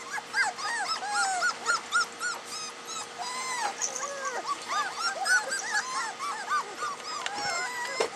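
Several soft-coated wheaten terrier puppies whimpering and yipping: many short, high-pitched cries that rise and fall and overlap one another.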